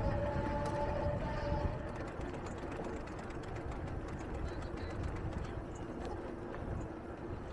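Street ambience heard from a moving bicycle: a continuous low rumble of road and traffic noise, with a steady pitched whine that fades out about two seconds in.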